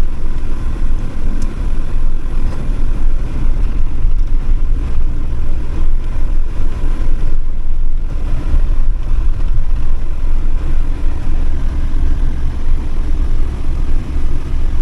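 Campervan driving, heard from inside the cab: a steady low engine and road rumble with no change in pace.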